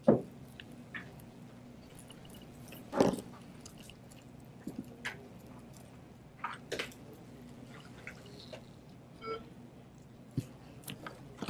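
Scattered small clicks and taps of plastic pry tools working under a smartphone's glued front glass assembly, separating it from the adhesive. The loudest are two knocks, one at the very start and one about three seconds in.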